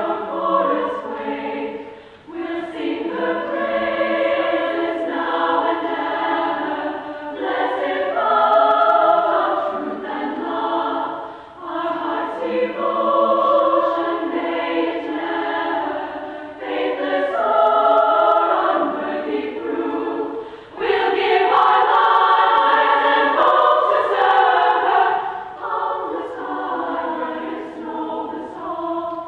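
Choir singing, sustained notes in phrases of a few seconds with brief pauses between them.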